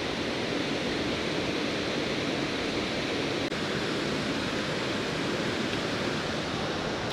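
Steady rush of a waterfall pouring into a rock-walled plunge pool, an even hiss that does not change.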